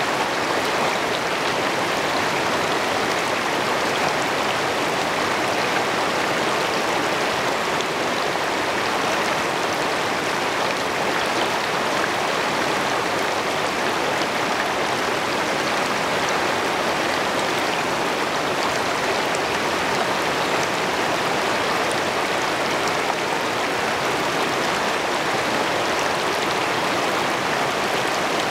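Shallow river rapids rushing over rocks close to the microphone: a steady, even rush of running water.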